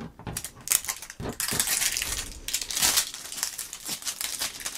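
Plastic toy packaging crinkling and rustling with small clicks and taps as it is handled and opened, most busily in the middle.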